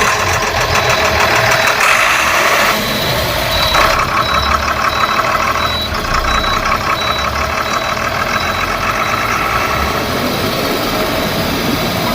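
Diesel engine of a Tata BS4 bus running steadily at idle, heard from the driver's seat. A high-pitched warning beeper sounds about two to three times a second, briefly at the start and again for a few seconds near the middle.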